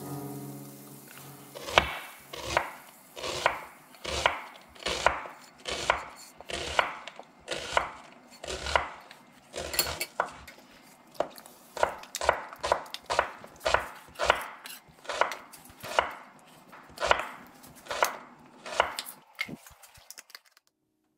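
A knife chopping on a cutting board: a long, even run of sharp strikes, about two a second, that stops near the end.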